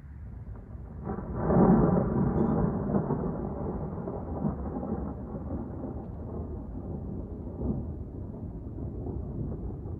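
Thunder: a peal that starts suddenly about a second in and then rumbles on, slowly dying down.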